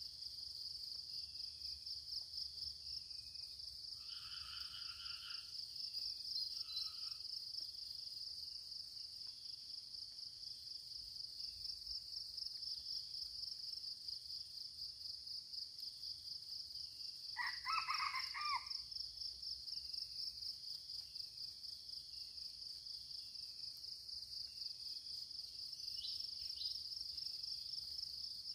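Steady high insect chorus pulsing rapidly, with a short bird call about four seconds in. Near the middle a red junglefowl crows once, the loudest sound.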